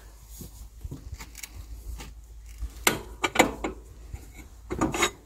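Screw-type cylinder liner puller being turned on a tractor engine block: scattered clicks and creaks as the liner is drawn out of the block, with louder clusters of knocks about three and five seconds in.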